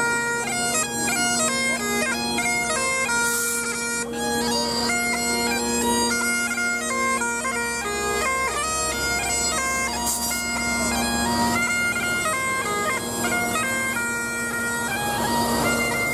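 Highland bagpipes playing a tune, the chanter's melody stepping from note to note over the steady drones.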